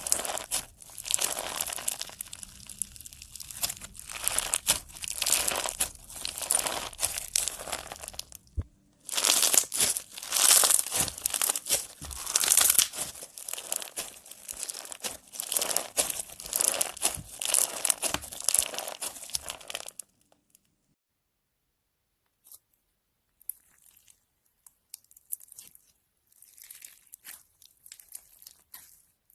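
Slime being squeezed and worked by hands, a dense crackling and crinkling with a short break about eight seconds in. About twenty seconds in it stops almost to silence, then faint, scattered crackles return.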